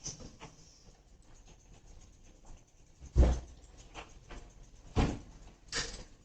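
Three thumps heard through a doorbell camera's microphone, the loudest about three seconds in and two more near five and six seconds, the last brighter and more drawn out, with faint clicks and rustles between.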